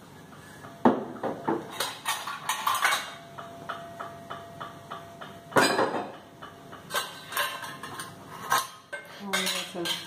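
Stainless steel vessels and tumblers clinking and clattering against one another and the dishwasher's wire rack as they are loaded into the upper rack. It is a run of sharp metallic knocks with short ringing, the loudest about a second in and again just before six seconds.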